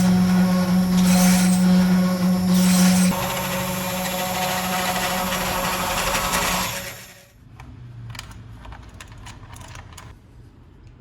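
Small homemade power tool's motor running with a steady hum while cutting wood, with three louder scraping surges in the first few seconds. It runs on more quietly and stops about seven seconds in, followed by light clicks and rubbing as the piece is handled.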